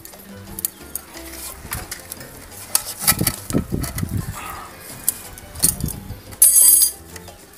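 Thin binding wire being twisted and pulled tight with a hand tool around a wooden plank and coir rope: scattered small metallic clicks and scrapes, with a louder scraping rasp near the end.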